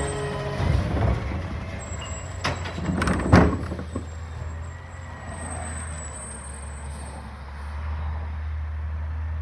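Recycling garbage truck's engine rumbling as the truck pulls away, with a few clunks and one loud bang about three seconds in; the low rumble then settles and stays steady.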